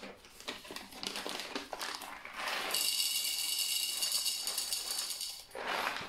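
Coffee beans poured into the plastic hopper of a Gaggia MDF espresso grinder, rattling. Scattered clicks at first, then a steady stream of beans rattling in from about three seconds in until shortly before the end.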